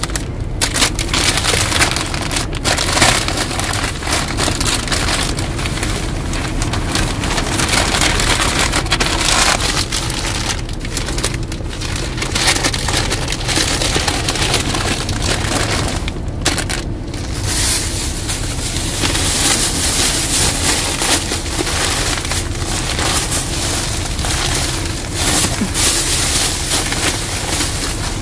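Newspaper crackling and rustling in irregular handfuls as it is folded around a bundle of dried fish, with plastic bags rustling, over a steady low rumble.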